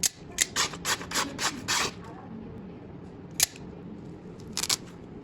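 A small hand tool being worked by hand: about seven quick rasping strokes in the first two seconds, a sharp click a little later, then another brief scrape near the end.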